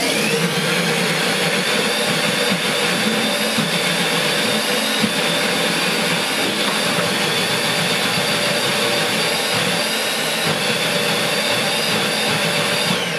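SilverCrest kitchen-machine food processor running at high speed, a loud, steady motor whine as its blade purées poached white fish with eggs and tomato coulis.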